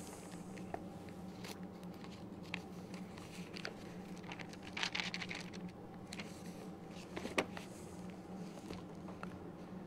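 Handling noise of a book and papers: soft rustles and small clicks and taps, a cluster of them about five seconds in and one sharp click about two seconds later, over a steady low hum.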